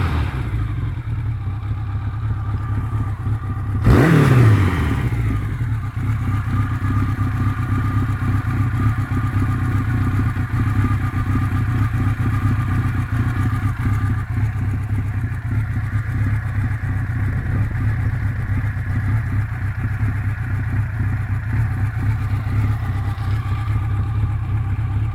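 Honda CB900F Bol d'Or air-cooled inline-four idling warm, with one quick throttle blip about four seconds in and the revs dropping straight back to a steady idle. It runs without any rattle after a rebuild with many new parts.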